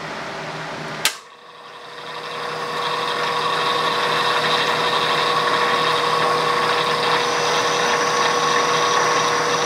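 A sharp clack about a second in. Then a 16-inch South Bend metal lathe runs steadily with a whine of several steady tones: the spindle turns under power and the carriage feeds the boring bar into the bore on an internal threading pass.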